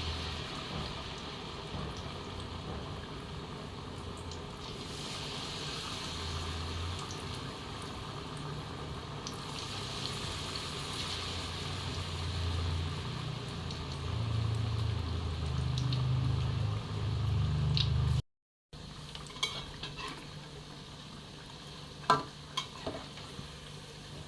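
Pempek frying in hot oil: a steady sizzle that grows louder toward the middle. After a brief cut near the end come a few sharp clinks of a utensil against the pan.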